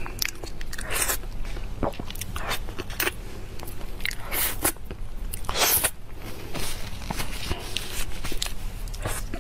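Close-miked eating of soft durian flesh: wet mouth smacks and clicks, coming irregularly.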